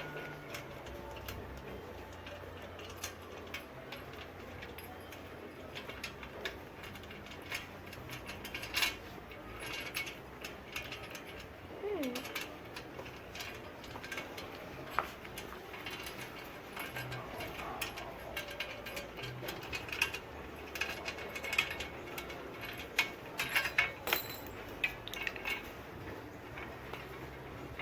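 Irregular clicks, taps and small rattles of parts being handled and fastened while accessories are fitted to a folding bike, coming more often in the second half.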